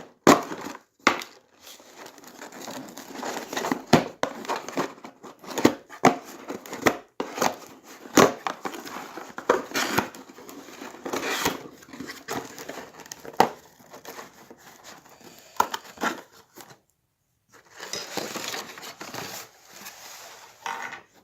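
Packaging being opened by hand: repeated crinkling, crackling and tearing, with sharp cracks throughout and a short pause about 17 seconds in.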